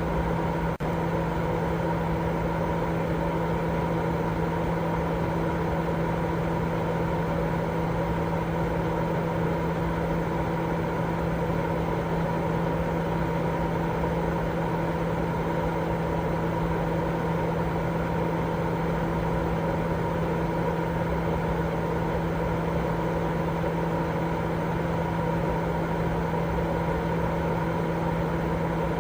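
Steady, unbroken white noise: an even hiss with a low hum and a few held tones running under it. There is one brief dip in level about a second in.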